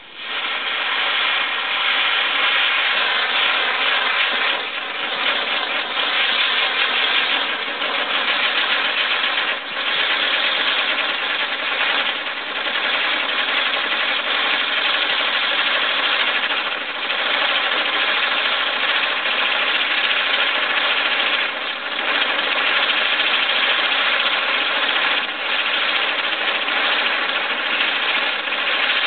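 Standard Fireworks Rev Wheel, a spinning firework wheel, burning with a loud, steady rushing sound carrying a pitched, engine-like drone. It comes up suddenly at the start and dips briefly every few seconds.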